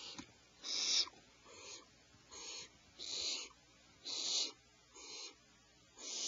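Owlets giving repeated rasping, hissing begging calls, about seven in a row at roughly one a second, some louder than others.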